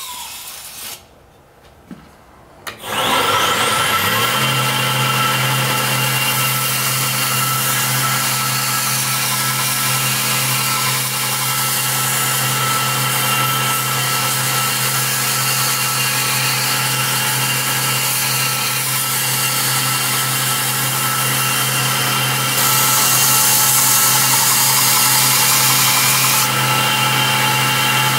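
Belt grinder switched on about three seconds in, its motor winding up to speed and then running with a steady hum. A steel chopper blade's edge bevel is ground against the 220-grit belt, throwing sparks, with a louder, hissier stretch of grinding for a few seconds near the end.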